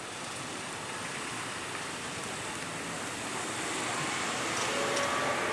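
Road traffic passing, a steady rush of engine and tyre noise that grows slowly louder, with faint thin tones coming in near the end.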